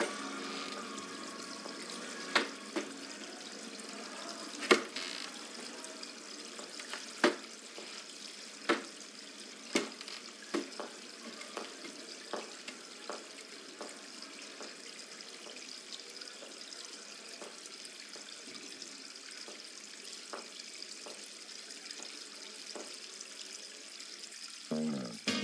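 Steady hiss of running water in a tiled public men's lavatory, with slow hard-soled footsteps on the tiled floor. The first few steps are the loudest, and the later ones come about a second apart and fainter. Film music comes back in near the end.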